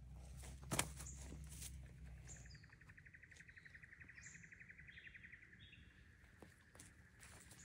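A bird's rapid, even trill that runs for about five seconds, with short high chirps from other birds above it. A single sharp knock sounds about a second in.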